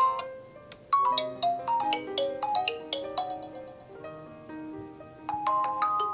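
Ringtone previews playing from a Nokia G20 smartphone's speaker: short melodies of quick, ringing notes that die away. One melody starts about a second in, and another starts about five seconds in as a different ringtone is selected.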